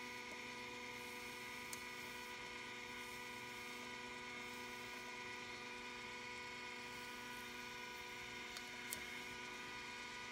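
Steady electric hum of a tumbler cup turner's small motor, with a few faint ticks as the tape is handled.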